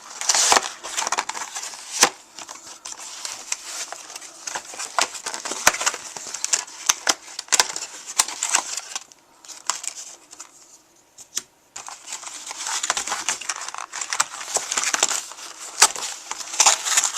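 Product packaging being opened by hand: crinkling and rustling with many sharp clicks and snaps, pausing briefly in the middle.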